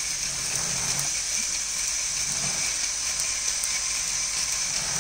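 Lego Technic bucket wheel excavator's electric motors running together: the conveyor belts and bucket wheel turn while the two L-motor-driven crawler tracks drive the model forward. The sound is a steady whirring of plastic gears, belts and treads.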